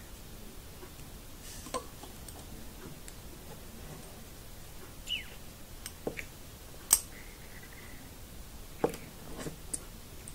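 Scattered small clicks and ticks as rubber loom bands are handled on two metal forks and hooked over the tines with a plastic hook, at irregular intervals, the sharpest about seven seconds in.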